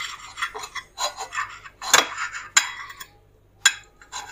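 A kitchen knife sawing through a rolled-flat slice of white bread on a glass plate, the blade rasping in short strokes. A few sharp clicks come through where the blade meets the glass.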